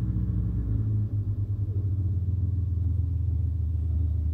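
Mitsubishi Galant's 2.5-litre V6 with a Remus aftermarket exhaust idling steadily, a low rumble heard from inside the cabin.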